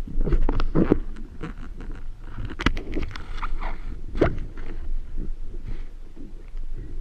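Water sloshing and splashing with irregular knocks and clicks, the sharpest about a second in, near three seconds and just after four seconds.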